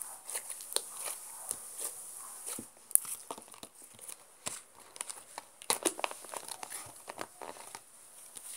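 Light-blue slime being squeezed and pulled apart by hand, giving irregular crackling and sharp clicking pops; in the second half it is pushed into a clear plastic tub.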